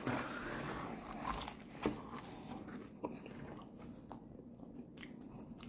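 Close-up eating sounds: a person biting and chewing food, with scattered short crunches and mouth clicks.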